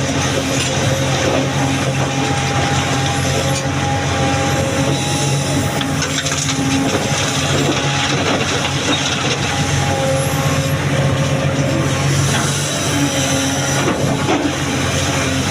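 Excavator's diesel engine running steadily under working load, with a whine that comes and goes as the hydraulics work, and occasional knocks of stone.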